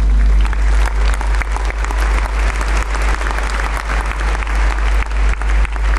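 Congregation applauding: dense clapping that starts about half a second in, over a steady low electrical hum.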